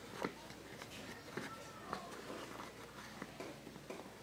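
Faint handling sounds of fingers pressing Play-Doh onto a plastic cake mold: soft, scattered small taps and clicks, the loudest just after the start.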